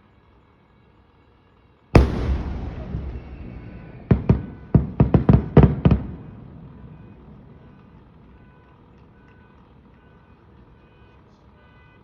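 Fireworks: a shell bursts with a loud boom about two seconds in, its rumble fading over the next few seconds, followed by a quick run of sharp crackling reports.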